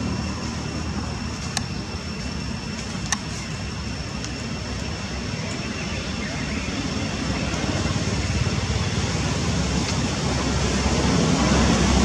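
Steady outdoor background rumble and hiss, with a few faint clicks. It grows slightly louder near the end.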